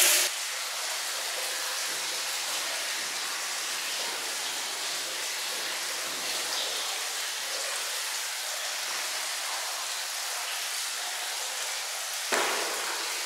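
Steady watery hiss of running water in a marble hammam bath room, even throughout. A sudden louder sound breaks in about twelve seconds in.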